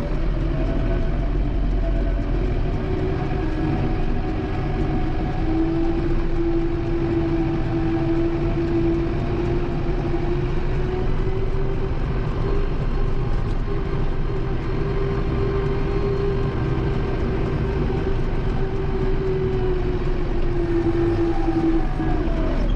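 Kubota M7060 tractor's four-cylinder diesel engine running steadily, with a steady whine over the rumble that drops in pitch near the end.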